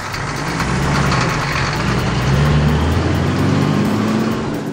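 Truck engine sound effect running and pulling away, its pitch slowly rising, fading near the end.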